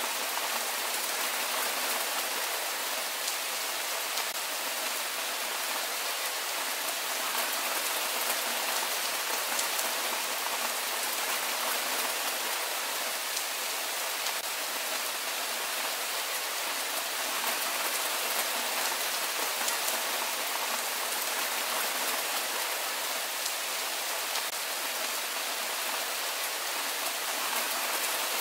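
Steady rain falling, an even hiss that does not change, with faint scattered ticks of individual drops.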